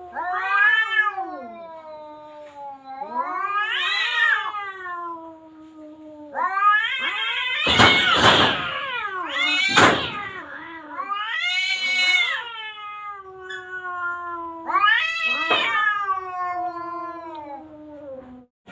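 Domestic cats caterwauling at each other in a threatening standoff: a series of long, wavering yowls that rise and fall in pitch, with two sudden harsh bursts around the middle.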